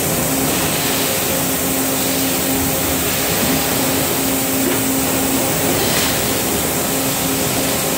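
Electric extrusion blow molding machine running while it extrudes plastic parisons: a steady hum under a constant hiss of machine noise.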